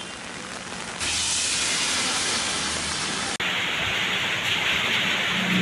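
Steady hiss of heavy rain, stepping up suddenly about a second in and changing abruptly again a little past the middle, as the footage cuts between shots.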